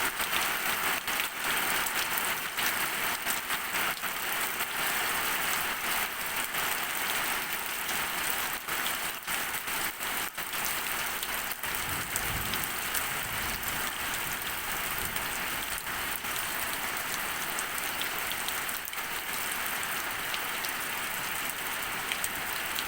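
Heavy rain pouring down steadily, a dense hiss with many sharp drop impacts close by.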